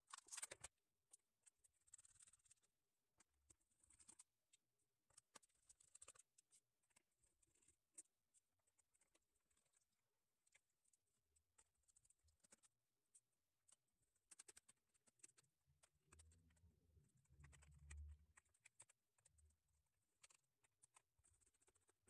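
Near silence, with faint scattered clicks and scratches of a small T5 Torx screwdriver working the screws of a laptop's plastic bottom cover, and a couple of soft thumps from handling the laptop.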